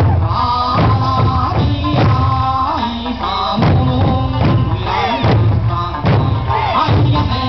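Eisa drummers striking large barrel drums (odaiko) and small hand drums (paranku), the strokes falling on the beat of an Okinawan folk song with a sung melody.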